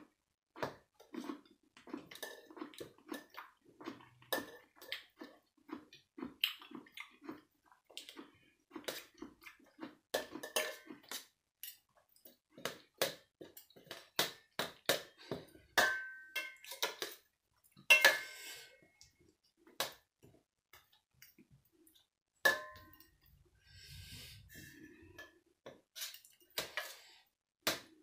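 Metal spoon and fork clinking and scraping against a stainless steel serving tray during eating, in many short clicks with a few brief ringing clinks. The loudest clink comes about two-thirds of the way through.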